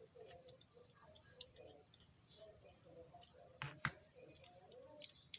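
Faint scattered clicks and light scrapes of a small screwdriver and fingers working on a diecast metal model car while the screw holding its base is taken out, with a few sharper clicks.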